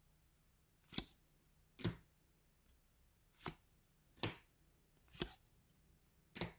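Trading cards being flipped one at a time, six short, sharp snaps about a second apart.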